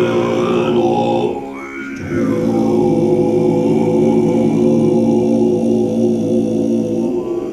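Tibetan Buddhist monks chanting together in deep voices, holding long steady notes, with a short break about a second and a half in before the chant resumes on one sustained note.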